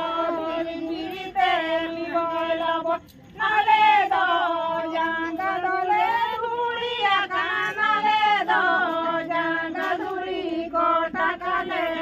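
A group of women singing together in unison with long held notes, breaking off briefly about three seconds in.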